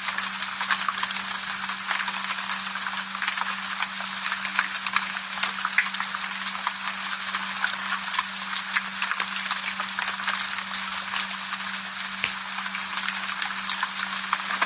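Steady rain, a dense crackling patter of many drops, with a steady low hum underneath.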